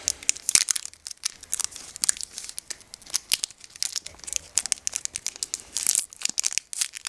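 Foil Pokémon booster pack wrapper crinkling and tearing as it is pulled open by hand, a continuous run of irregular crackles.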